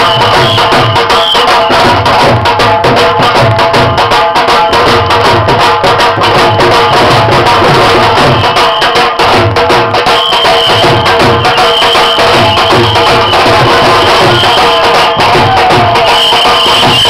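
Several dhol drums beaten with sticks in a loud, continuous bhangra rhythm, the deep bass beats pulsing under a dense run of sharp stick strokes.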